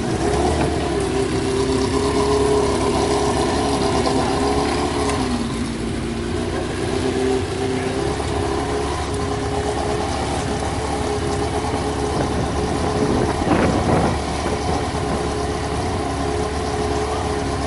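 The 2009 Toyota F1 car's 2.4-litre V8 idling steadily at a high, even pitch, with a short surge in revs about thirteen seconds in.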